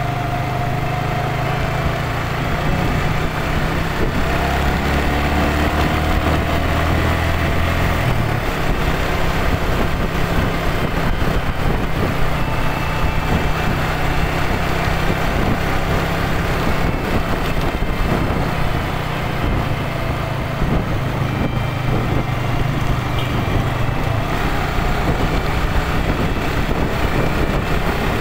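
Motorcycle engine running steadily while riding, under a steady wash of wind and road noise. The engine note changes about four seconds in and again about eight seconds in.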